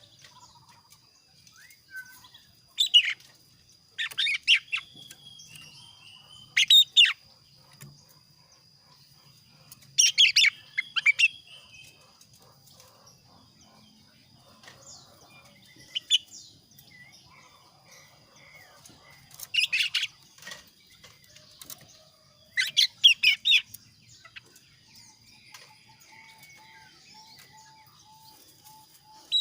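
A male kaso-kaso bird singing in short, loud bursts of quick, sharp chirps every few seconds: a lure song meant to set other kaso-kaso birds singing in reply. A faint, steady high-pitched tone runs underneath.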